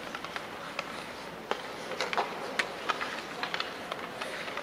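Ice hockey play: sharp clacks of sticks and puck on the ice, scattered irregularly, over the steady scrape and hiss of skates in a large arena.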